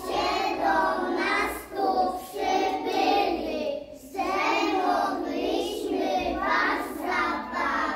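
A group of young children singing a song together in phrases, with a short break between phrases about four seconds in.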